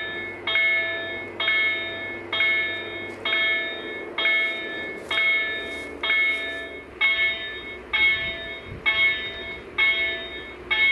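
Level crossing warning bells (KLD-4103 acoustic signals of a COB-63A crossing system) ringing, struck about once a second, each stroke ringing out with several tones, the strokes coming closer together after about seven seconds. They sound with the flashing red lights as the crossing's warning that a train is approaching.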